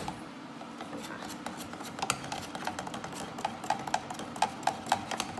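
Wooden stick stirring liquid inside a plastic watering can, knocking against the can's sides in a run of quick, irregular clicks and taps.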